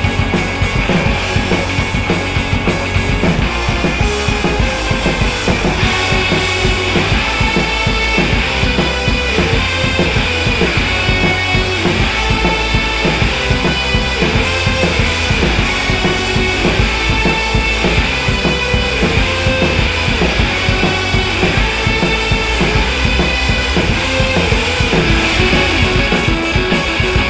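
Loud rock music with a driving drum beat and guitar.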